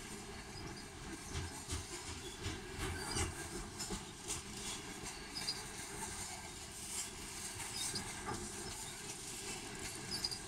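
A Canadian National freight train of covered grain hopper cars rolling past at close range. The steel wheels run over the rails with a steady rumble, broken by irregular clicks and clanks.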